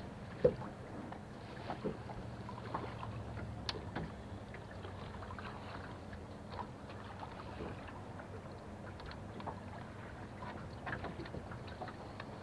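Quiet ambience aboard a small fishing boat: faint water and wind noise under a low steady hum, with scattered light clicks and taps from gear on deck, the sharpest about half a second in.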